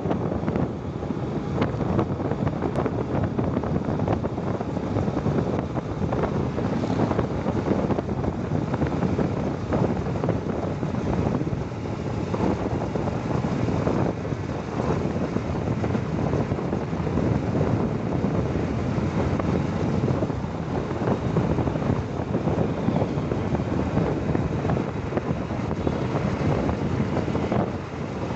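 Wind buffeting the microphone over the steady rumble of a moving vehicle's road and engine noise.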